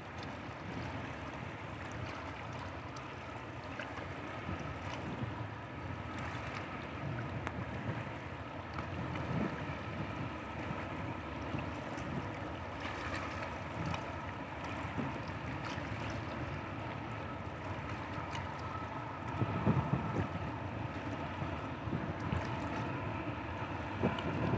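Engine of the passenger ship KL Laksamana Malahayati droning steadily across the water as the ship moves away. Wind buffets the microphone in gusts, most strongly about twenty seconds in and again near the end.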